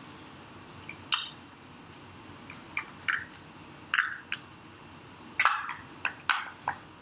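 Hard plastic clicks and knocks of a 3D-printed enclosure and its lid being handled and pressed together, about a dozen short sharp clicks at uneven intervals, the loudest run coming near the end.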